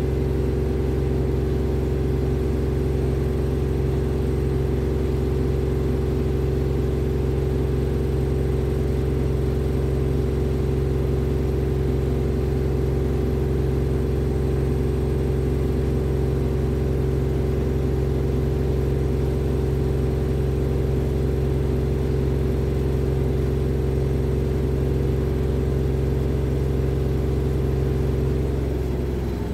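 A steady, unchanging low drone made of several held tones, easing off slightly near the end.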